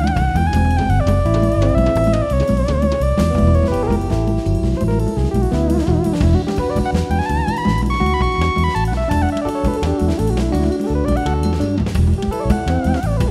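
Afro-Dominican jazz band playing live, a piece built on gagá rhythm. A keyboard plays fast melodic runs that climb and fall over a busy drum kit and hand drums.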